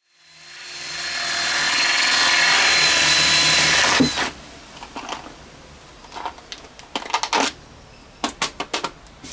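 A workshop power tool spins up over about a second and a half and runs steadily with a hiss. It drops off about four seconds in, followed by a string of short, sharp bursts.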